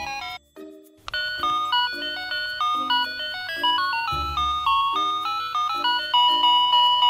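NAVYSTAR 'Friendly Animals' musical toy cat playing a simple electronic beeping tune over a pulsing lower accompaniment. The tune breaks off about half a second in, and a new tune starts about a second in, like a switch to the next melody.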